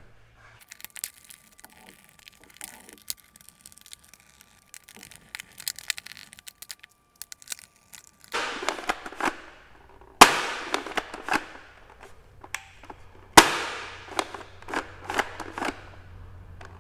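Bug-A-Salt spring-loaded salt gun being handled after reassembly: faint plastic clicks at first, then from about halfway three loud sharp snaps a couple of seconds apart, each followed by rattling clicks, as the gun is cocked and dry-fired to test it.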